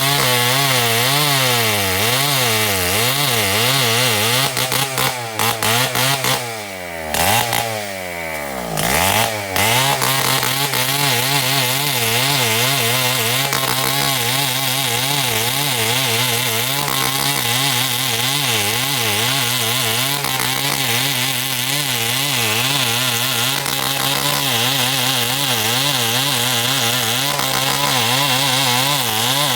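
Two-stroke chainsaw running at high revs while cutting timber, its pitch wavering constantly under load. About six seconds in the engine drops toward idle with a few brief breaks in the sound, then revs back up and carries on cutting.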